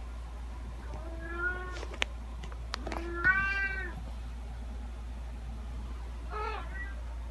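Domestic cat meowing three times: one meow about a second in, a louder one about three seconds in, and a fainter, shorter one near the end. A few sharp clicks fall between the first two meows, over a steady low hum.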